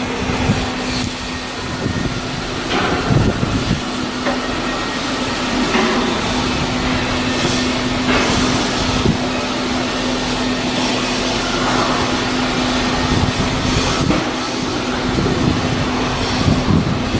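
Shipyard work noise: a steady machine hum with scattered knocks and clanks over a noisy background.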